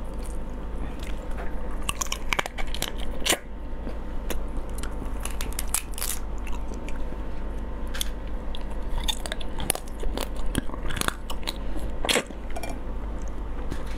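Close-miked cracking and snapping of a raw soy-marinated crab's shell being pulled apart by hand, with wet crunching and chewing as the meat is eaten. The cracks come irregularly, some sharp and loud, over a steady low hum.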